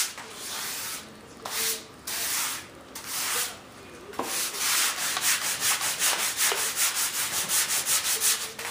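Hand sanding with sandpaper, rubbed back and forth over cured epoxy plugs in the servo holes of a model jet wing to level them. A few longer strokes with short pauses, then a quick steady rhythm of about three strokes a second from about halfway.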